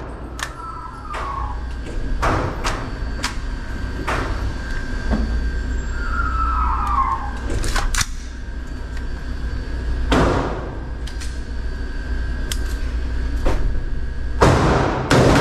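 Sharp gunshots going off at irregular intervals and echoing in an indoor shooting range, mixed with clunks of a rifle being handled and its magazine fitted. A denser, louder run of shots comes near the end.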